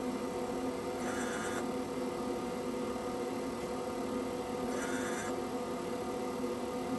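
TBK-288 screen separator running with a steady machine hum. Two short, higher noisy sounds come from it, about a second in and again about five seconds in.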